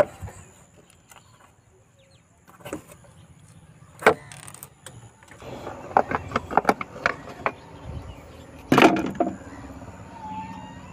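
Plastic timing-belt cover on a Tata Sumo Victa engine being worked loose and pulled off by hand: scattered knocks and clatters of plastic. A quick run of them comes in the middle, and the loudest knock is near the end.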